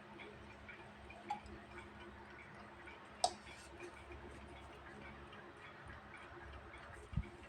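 Vintage mechanical alarm clock ticking faintly and evenly, about four ticks a second. A sharp click about three seconds in and a low thump near the end.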